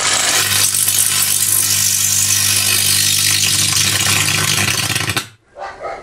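Carbon arc lamp burning between graphite rods on 220 V mains at about 300 amps: a loud, steady hissing buzz over a low, even hum. It cuts off suddenly about five seconds in as the arc goes out.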